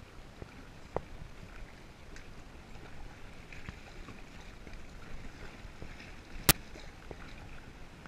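Paddling a kayak on calm water: the paddle blades dip and drip, and water laps against the hull with small splashes. There is a light knock about a second in and a sharp, much louder knock late on.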